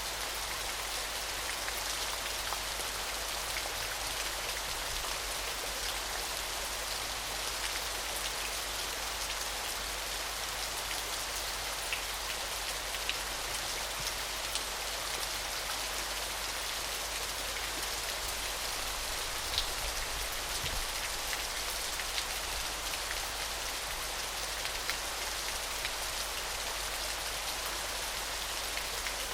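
Small, gentle waterfall splashing steadily: an even, bright hiss of falling water with scattered small drips and splashes.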